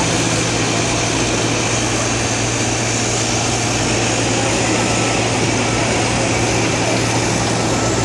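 Heavy diesel engines running steadily, from a Power Plus PP220E-X1 excavator close by and a Cat D5K crawler bulldozer at work, as one loud, even drone with a constant low hum.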